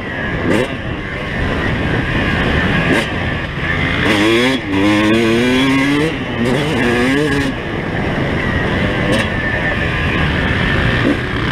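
Yamaha YZ250 single-cylinder two-stroke motocross engine under way, revving up and down as the bike is ridden. Its pitch climbs in several quick runs near the middle.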